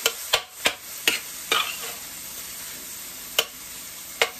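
Metal spatula stirring fried rice in a stainless-steel sauté pan, clacking and scraping against the pan, over a steady sizzle of frying. The sharp clacks come several times in the first second and a half, then twice more near the end.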